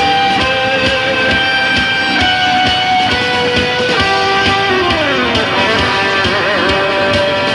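Live rock band playing an instrumental passage: a sustained lead electric guitar melody over strummed guitar and a steady drum beat. The lead line slides down in pitch about five seconds in.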